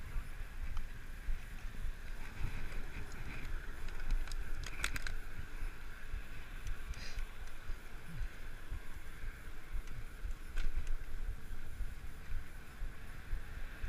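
Riding noise from a tandem bicycle on a paved bike path: wind buffeting the microphone and tyres rumbling steadily, with a few light clicks and rattles.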